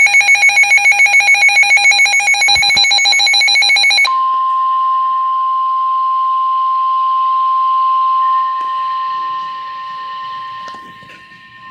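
An electronic alert alarm trills rapidly for about four seconds. It then cuts over to the National Weather Service's steady 1050 Hz warning alarm tone, a single pure tone held over faint radio hiss, signalling that a warning broadcast is about to follow.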